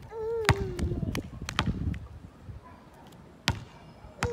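Basketball bouncing on a hard court after a missed shot, a few bounces coming quicker and quicker as it settles, then two more separate bounces near the end.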